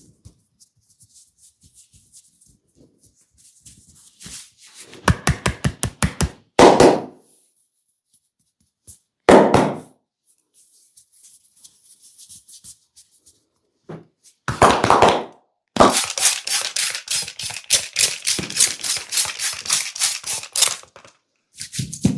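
Percussive massage strikes: two runs of rapid, even hits, about seven a second, with a few louder single hits between them.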